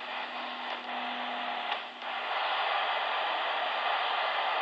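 Midland 77-800 AM CB radio hissing with band static through its speaker as it is tuned across channels. A faint low steady tone sits under the hiss at first; about two seconds in the hiss drops out briefly, then returns louder and steady as a new channel comes in.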